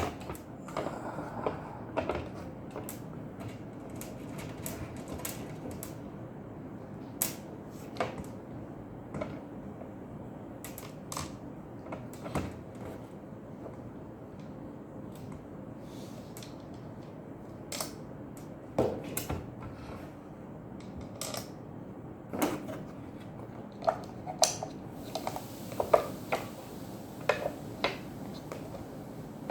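Irregular clicks and knocks of a sandwich maker's parts being handled and fitted back together as it is reassembled, over a steady low hiss. The clicks come more thickly near the end.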